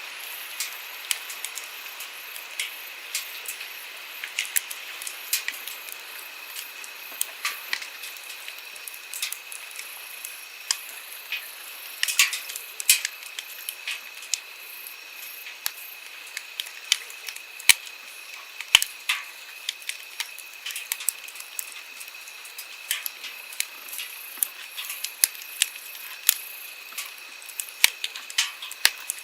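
Firewood burning with irregular sharp crackles and pops, over the steady rush of a flowing stream.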